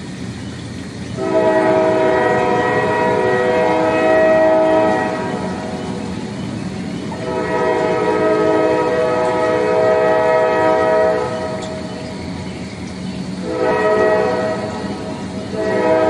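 Goods train locomotive horn sounding an old-style chord: two long blasts of about four seconds each, then two shorter ones near the end. Under the horn is the steady rumble of the train rolling across a steel truss bridge.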